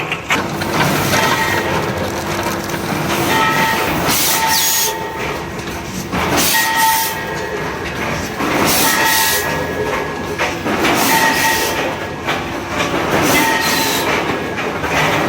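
Rotary premade-pouch packaging machine running in its cycle, with a hiss of air released about every two seconds and short faint tones repeating on the same rhythm.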